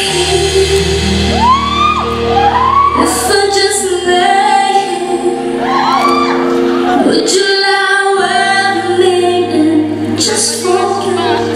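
Live pop music: a female singer holding and sweeping through melodic runs into a handheld microphone, over sustained keyboard chords.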